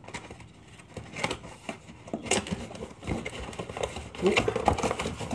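Small cardboard mug box being handled and its flaps pulled open: scattered light scrapes and taps, busier in the second half.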